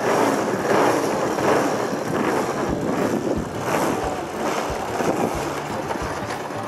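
Small gas engine of an RC Extra 260 aerobatic plane running, its propeller turning as the plane taxis away. The sound is loudest at first and eases slightly as it draws off.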